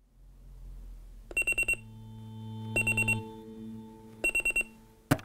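Digital alarm clock beeping in three bursts of four quick, high beeps, over a faint low hum; a sharp knock near the end.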